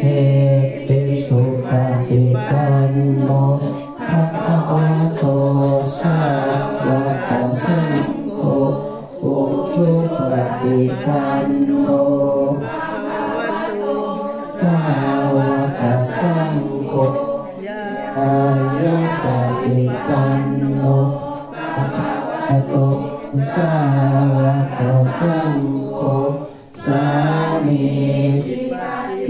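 A group of voices chanting Buddhist verses together in unison, in long held phrases with short breaks between them.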